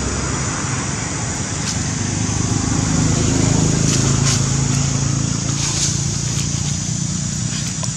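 A motor vehicle's engine droning in the background, growing louder in the middle and then easing off, over a steady high hiss, with a few faint clicks.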